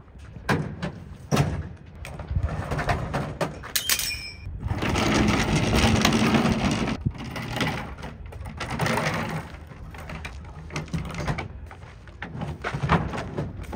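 Wooden wing cradle on casters being rolled over asphalt and heaved into a pickup bed: wheels rumbling on the pavement, with repeated knocks and clunks of the timber frame and a brief squeak about four seconds in.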